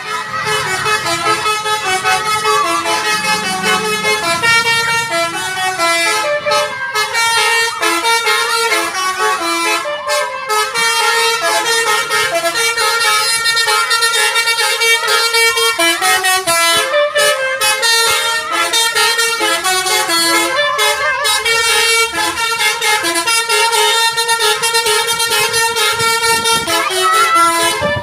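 Indonesian 'telolet' bus horn, a multi-tone musical air horn, playing a long tune of stepping notes with a few short breaks.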